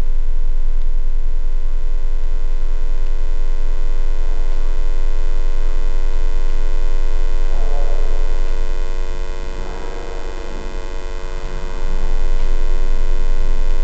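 Loud, steady electric buzzing drone over a deep hum. It dips in level for a few seconds past the middle, then swells back.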